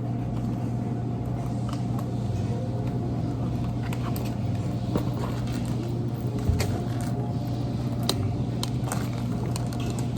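Steady low mechanical hum with scattered light clicks and clatter.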